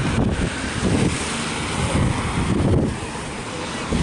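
Wind buffeting the microphone in irregular gusts, over the hiss of traffic passing on a wet road.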